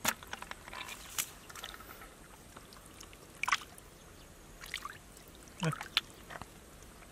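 Hands splashing and sloshing in shallow muddy water, in short separate splashes a second or so apart. A sharp knock comes right at the start, as a mud-caked catfish tangled in roots is dropped into a plastic bucket.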